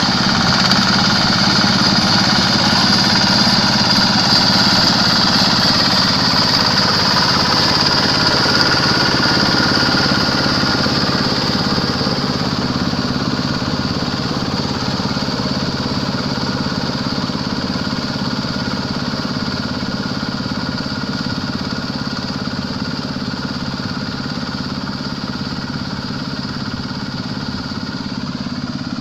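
Quick H-140R combine harvester's Kubota diesel engine running steadily, with a high whine over the engine note, slowly getting quieter.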